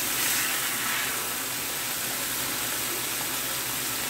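Strip steaks sizzling in a skillet of hot grease: a steady hiss.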